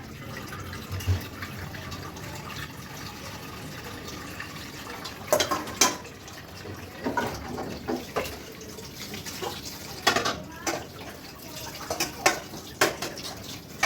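Water running from a kitchen tap into a sink, with a series of sharp clinks and knocks from about five seconds in as things are handled at the sink.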